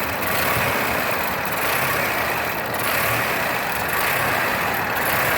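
Vehicle engine idling roughly, its sound swelling and sagging unevenly every second or so.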